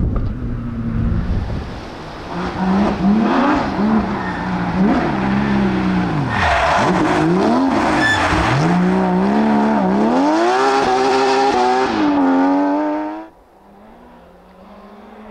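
Rally car engines at full throttle, the revs climbing and dropping again and again through gear changes and lifts. About thirteen seconds in, the sound drops abruptly to a quieter, steadier engine note.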